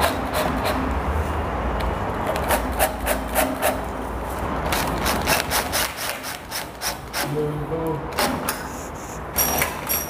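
Makita cordless drill-driver driving screws into a metal gate handle's faceplate, with scraping of metal on metal and a run of sharp clicks and knocks as the bit and handle are worked.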